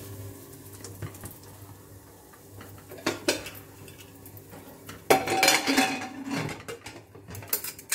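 Aluminium pressure cooker lid, with its rubber gasket removed, set on the pot and turned to lock, metal scraping and clanking on the rim with a short ringing note, about five seconds in. Lighter metal clinks come a couple of seconds before and again near the end.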